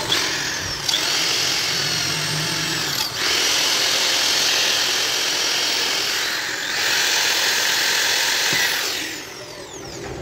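Cordless drill boring into the metal bolster of a knife handle, running with a high whine in three stretches separated by short pauses about three seconds in and near seven seconds, and stopping about nine seconds in.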